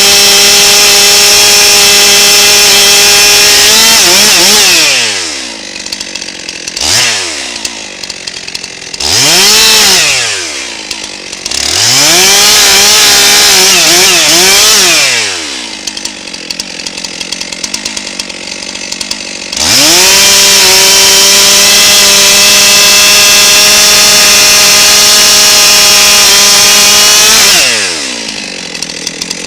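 Gas chainsaw cutting through red oak at full throttle. It drops to idle about four seconds in and is blipped a few times. From about twenty seconds in it runs wide open through another cut, then falls back to idle near the end.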